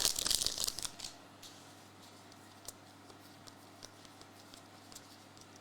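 Trading cards and a pack wrapper being handled: papery rustling that fades within about the first second, then a few faint light clicks.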